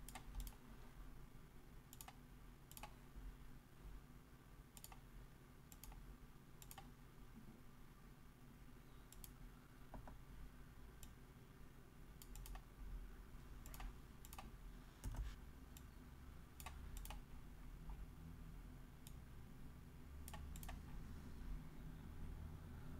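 Faint, irregular clicks of a computer mouse, a couple of dozen scattered through, over a quiet low hum of room tone.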